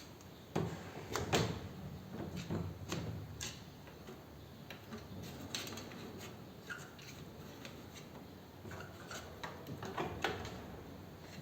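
Irregular clicks and knocks of metal parts and hand tools being handled during motorcycle driveshaft removal, with a few louder knocks about a second in and again near the end.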